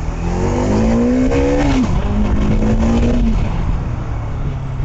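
Bajaj Dominar 400's single-cylinder engine through its stock exhaust, accelerating hard under throttle. The engine note climbs, drops abruptly just under two seconds in, holds steady for over a second, then eases off.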